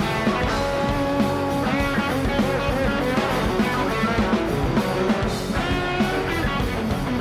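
Rock music with a bending lead guitar line over a steady drum beat.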